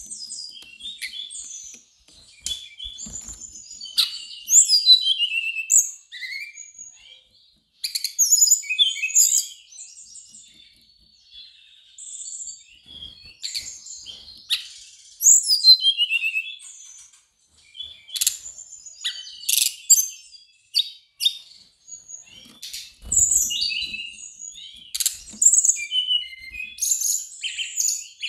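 Brown-chested jungle flycatcher singing: a run of quick, varied, high twittering phrases, each a second or two long, with short pauses between them.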